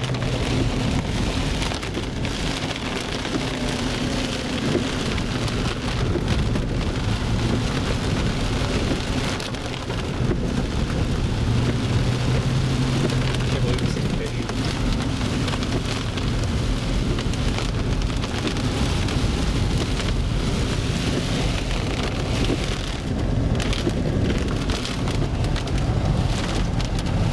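Rain pattering on the windshield and roof of a moving vehicle, heard from inside the cabin, over a steady low hum of engine and tyres on a wet dirt road.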